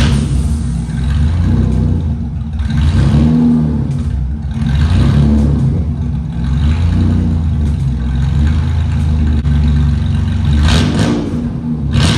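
The Camaro's 3.8-litre V6 engine running with a steady low drone, swelling louder several times as the revs or road noise rise and fall.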